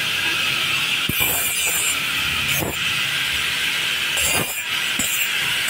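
Handheld angle grinder with an abrasive disc running at speed, with a steady high whine, as it grinds a metal bypass tube. Three short bursts of harsher grinding come about a second in, near the middle and about four seconds in, as the disc bites into the pipe.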